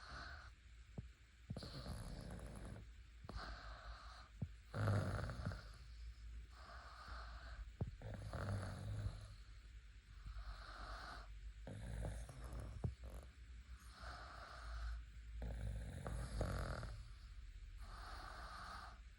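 Snoring in slow, regular breaths, about one snore every two seconds.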